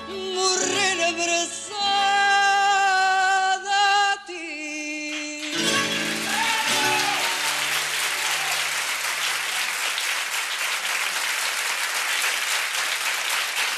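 A woman sings the long final note of a fado with vibrato over plucked Portuguese guitar and guitars. The song ends about five and a half seconds in, and an audience breaks into steady applause.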